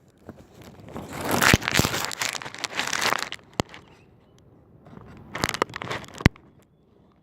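Rustling, crackling handling noise with several sharp clicks, in two spells: one from about a second in to just past three seconds, and a shorter one near the six-second mark.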